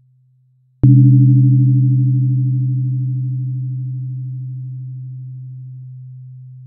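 A 128 Hz sound-therapy tone struck once about a second in, with a sharp click at the strike. A low, steady hum then rings on and slowly fades. Weaker, pulsing overtones above it die away before the end. Before the strike, the previous tone is fading out faintly.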